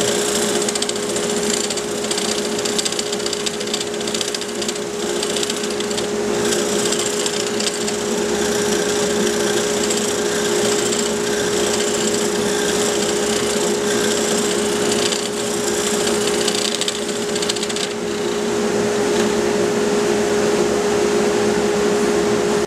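Wood lathe spinning a small pecan hollow form while a hollowing tool on a jig cuts inside it: a steady hum with a continuous rough scraping hiss from the cut, until it cuts off suddenly.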